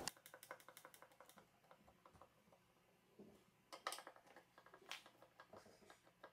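Faint, quick clicking of a screwdriver turning out the small Phillips screws that hold the tweeter in a Dayton Audio T652 speaker, with a few sharper clicks about four and five seconds in.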